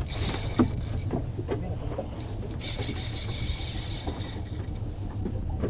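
Boat engine running with a steady low rumble, with two stretches of hiss from water or wind, one in the first second and a longer one in the middle.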